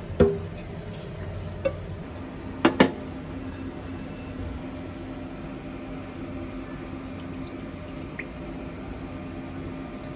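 Metal cookware clanking: a steel pot and lid knocking as boiled cauliflower is drained into a colander in a steel sink, then two sharp knocks a few seconds in. After that, only a steady low hum.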